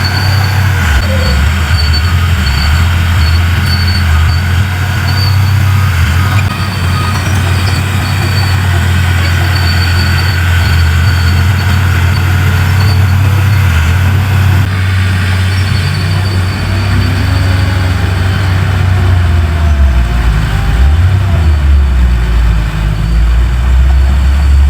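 Heavy diesel earthmoving machinery running steadily with a deep, loud engine rumble. A faint high squeak comes and goes during the first half. About two-thirds of the way through, the engine note drops lower and wavers before settling.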